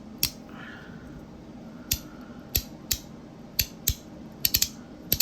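Magnetic haptic coin fidgets snapping back and forth: about ten sharp clicks, irregularly spaced, with quick runs of two or three in the second half.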